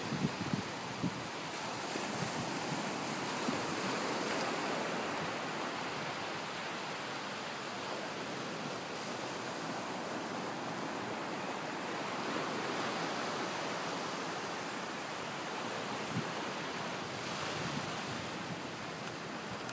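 Small surf breaking and washing up a sandy beach: a steady hiss that slowly swells and eases as the waves come in.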